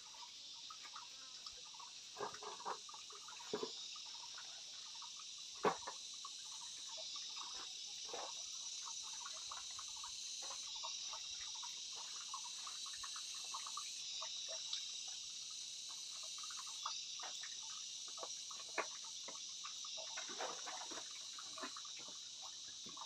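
A steady high-pitched chorus of insects, with scattered light knocks and clicks, the loudest about six seconds in.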